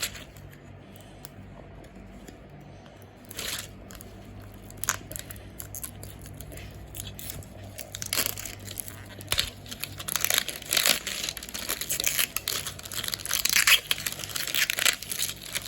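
Toy packaging being torn open and crinkled by hand. After a quiet start there are a few scattered crackles, then dense crinkling and tearing through the second half.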